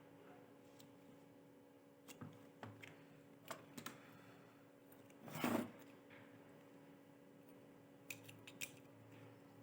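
Scattered light clicks and taps of small objects being handled, with one louder brief scrape about five seconds in, over a faint steady hum.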